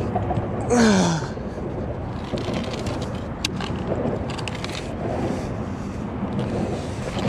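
Steady outdoor background noise, with one short exclamation falling in pitch about a second in and a single sharp click near the middle.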